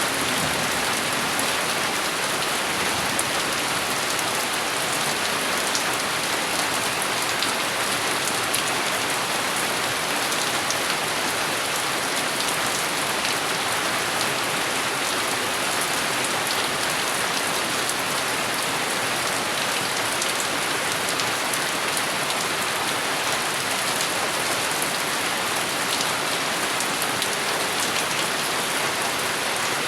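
Steady rain falling, an even dense patter of drops that does not change.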